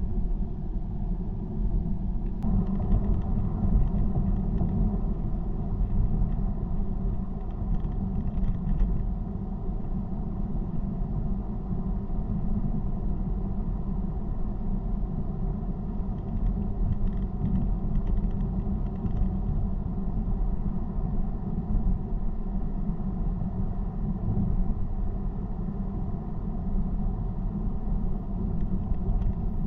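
Steady low rumble of a car driving at motorway speed, tyre and engine noise. It turns slightly brighter a couple of seconds in.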